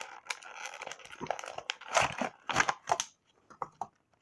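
Cardboard box and clear plastic blister packaging crinkling and rustling as a fidget spinner puzzle is slid out of its box, loudest about two to three seconds in. It ends in a few light clicks.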